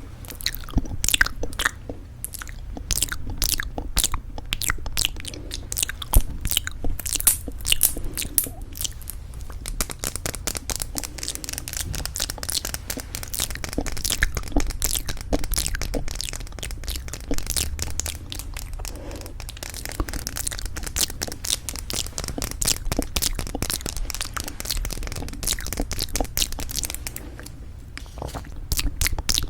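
Rapid tapping and clicking on lipstick cases, quick runs of sharp taps with a couple of brief lulls.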